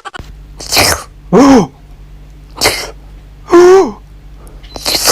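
A cat gives short meows, each rising then falling in pitch, two in a row. Each is preceded by a short breathy burst, and there are three bursts about two seconds apart.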